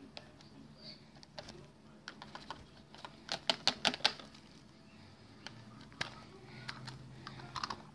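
Plastic clicks and clatter from a toy garbage truck and a toy trash can being handled, with a quick run of about six sharp clicks near the middle.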